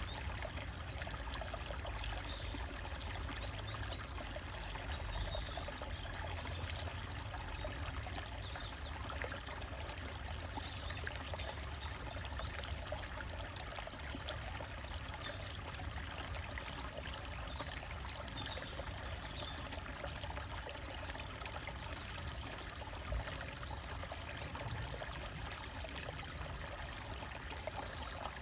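Small stream trickling and splashing over rocks, a steady flow of water.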